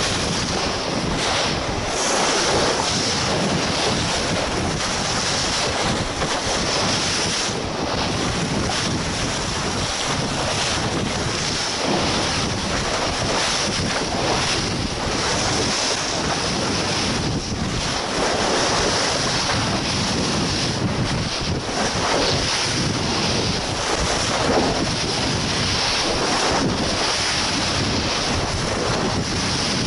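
Steady wind buffeting the microphone over rushing sea water, as heard on the open deck of a moving boat.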